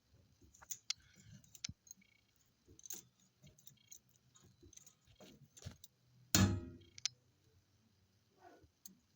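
Irregular light clicks and rattles from the rear axle beam area of a Peugeot Partner M59, with one loud clunk about six seconds in: the knock from the rear beam that the owner is tracking down.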